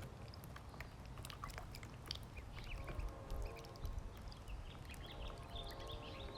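Ducklings peeping and pecking at their food, with many quick clicks of bills over a steady low rumble.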